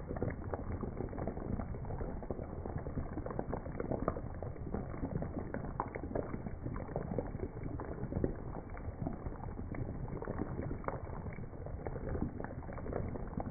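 Pinakbet stew simmering in a pan, its sauce bubbling with a steady crackle of small pops.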